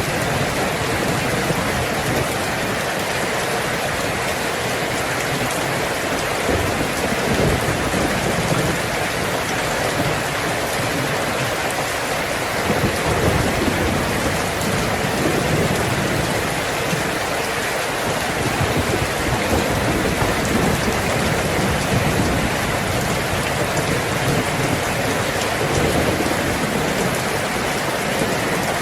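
Heavy rain drumming steadily on a tin roof, with low rolls of thunder swelling up several times.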